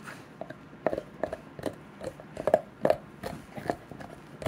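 A Labrador retriever chewing on something hard: an uneven run of sharp clicks and knocks, about two or three a second.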